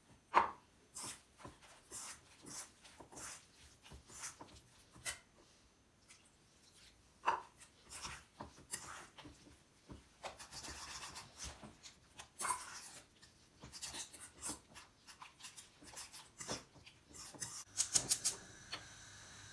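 Fork scraping and clinking against a stainless steel bowl while mixing pancake batter, in irregular strokes, with a quick run of sharp clicks near the end.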